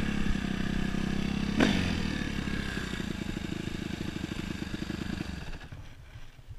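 Suzuki RM-Z250's four-stroke single-cylinder engine coming off the throttle as the dirt bike slows, with one quick falling rev about a second and a half in. It then runs at a low, rapid, even beat before dropping away about five and a half seconds in.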